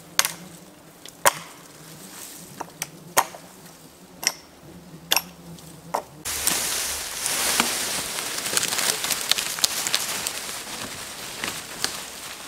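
Axe chopping branches off a felled conifer: about seven sharp, separate chops over the first six seconds. About six seconds in this gives way to a steady rustling of leaves and brush with scattered snaps, as of movement through undergrowth.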